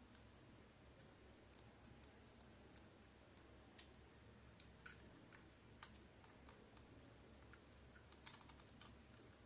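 Near silence with faint, irregular small clicks and taps from handling the gimbal's camera clamp and its screws while an action camera is fitted; one click about six seconds in is a little sharper than the rest.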